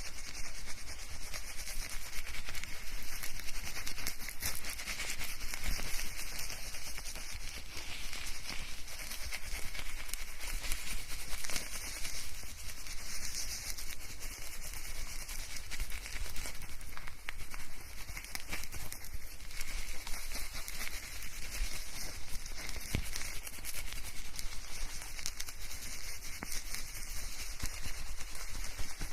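Fingers scrubbing shampoo-lathered hair: a steady rubbing of foam and hair with many small crackles, close to a binaural microphone.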